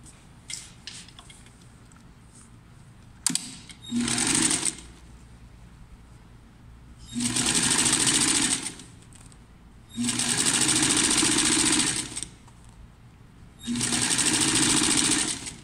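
Sewing machine stitching fabric in four separate runs, stopping and starting between them: a short burst about four seconds in, then three runs of about two seconds each. A sharp click comes just before the first run.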